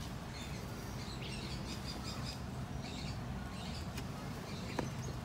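Parakeets chirping repeatedly with short high calls, over a low steady rumble.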